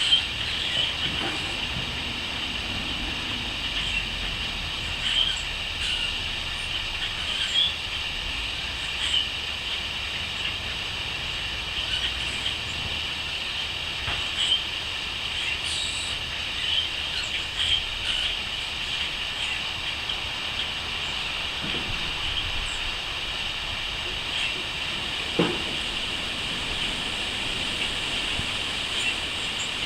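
Crickets chirping in a steady, high, even drone, with short bird chirps scattered through.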